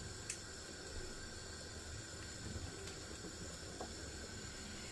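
Pot of red tomato and fish broth boiling, a low steady hiss with a few faint ticks.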